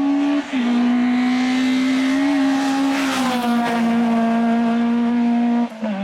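Hillclimb race car engine running hard at high revs, with two brief cuts in the sound at gear changes, about half a second in and near the end, the pitch dropping after each upshift.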